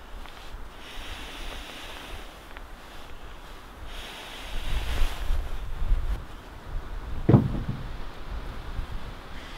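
Wind gusting over the microphone, a steady rushing that swells into a low rumble about halfway through, with one dull thump near the end.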